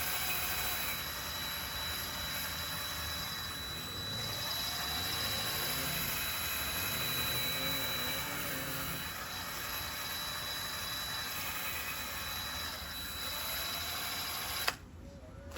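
Power-tool-driven wire wheel running steadily with a thin high whine, scouring heavy carbon deposits off the Onan P218G engine's parts; it cuts off abruptly about a second before the end.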